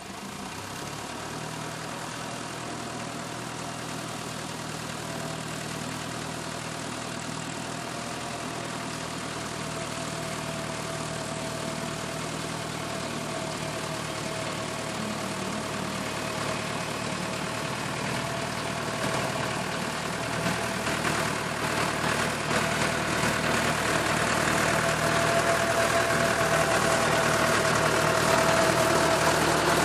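Tractor engine running steadily while a tractor-mounted rotary mower cuts grass, growing louder as the tractor comes closer, with a steady whine through it and scattered knocks in the second half.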